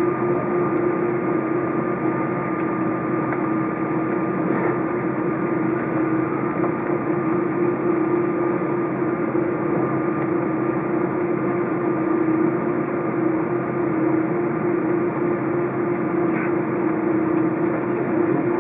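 Steady cabin noise of an Airbus A330 taxiing with its turbofan engines at idle: an even droning hum with a fainter high whine above it.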